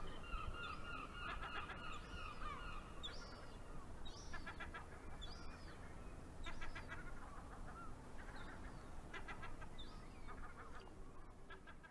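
Seagulls calling: one long, even call over the first few seconds, then repeated bursts of quick, staccato cries and short rising-falling yelps every second or two.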